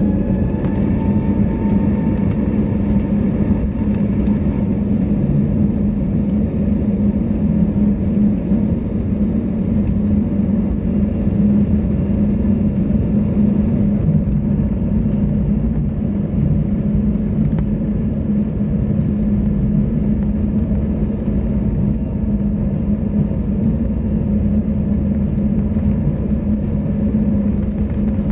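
Airliner jet engines during the takeoff roll, heard inside the cabin: a loud, steady rumble with a steady low hum. A faint whine fades away in the first few seconds.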